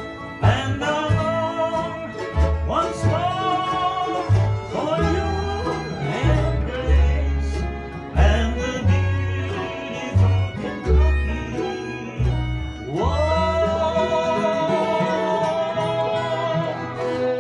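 Acoustic bluegrass string band playing at a jam, with a voice singing the lead over a steady bass line. The singer holds one long note in the last few seconds.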